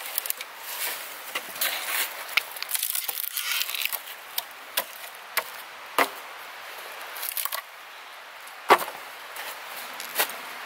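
Firewood being chopped by hand: a series of sharp, irregularly spaced strikes into wood, the loudest near the end, with rustling and crunching between strikes.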